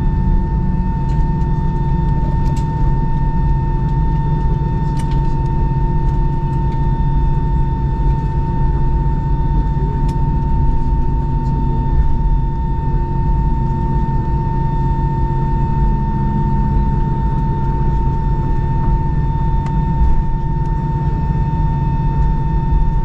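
Airbus A319 cabin noise while taxiing after landing: the engines run at idle over a dense, steady low rumble, with a steady whine throughout.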